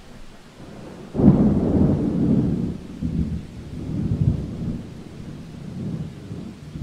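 Thunder with rain: a deep rumble breaks in about a second in and rolls on in several waves, over a steady hiss of rain.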